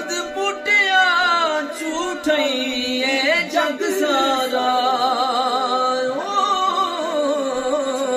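Two men singing a Punjabi Sufi kalam in long, drawn-out notes with a wavering vibrato and sliding ornaments, the voices at times overlapping.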